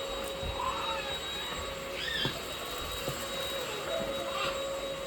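INSE cordless stick vacuum running steadily, its motor giving a constant high whine over a rushing hiss as it cleans a rug.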